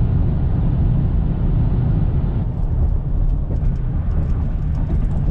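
Car being driven at highway speed, heard from inside the cabin: a steady low rumble of road and engine noise, with a few faint light ticks in the second half.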